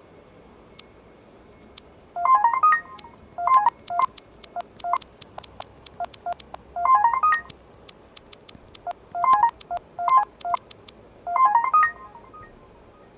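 Asus ZenFone 2 Laser notification tones playing through the phone's speaker: about seven short bursts of quick electronic beeps, with sharp clicks between them.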